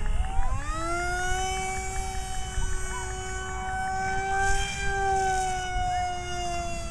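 RC model jet's motor whining in flight: the pitch dips and then climbs over the first second as the throttle opens, holds steady, and falls again near the end as it throttles back.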